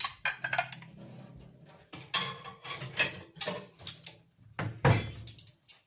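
Dishes and cutlery clattering during washing up: a run of irregular clinks and knocks over a low steady hum.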